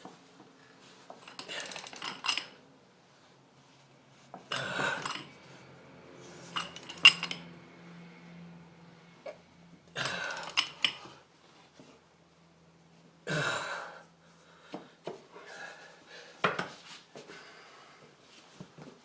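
Steel tools and bushing press parts clinking and clanking against each other and the control arm, in a string of separate knocks about every two to three seconds, with smaller clinks between.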